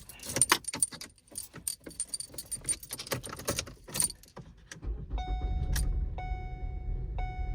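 Keys jangling and clicking for several seconds, then the 2016 Ford Escape's engine starts and runs steadily about five seconds in, with a warning chime sounding about once a second over it.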